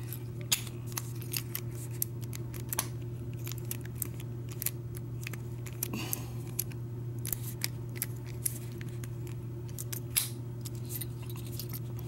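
Heavy steel padlock, fitted with a Schlage Everest KIK cylinder, being handled: irregular small metallic clicks and clinks of the body and shackle, the sharpest about half a second in and near ten seconds.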